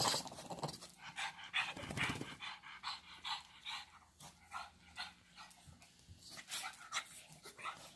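A small dog panting close by in short, quick breaths, about two to three a second.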